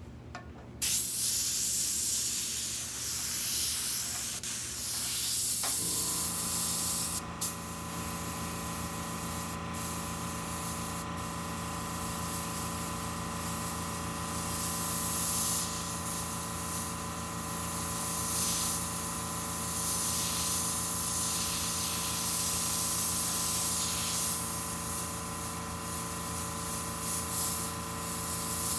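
An airbrush with a siphon-feed paint bottle spraying paint onto paper towel: a hiss that starts just under a second in, with a few short breaks as the trigger is let off. A steady hum joins about six seconds in and keeps running.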